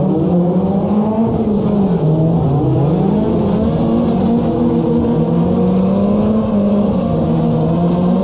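Car engine revving hard while drifting, its pitch dipping a couple of seconds in and then climbing and holding high.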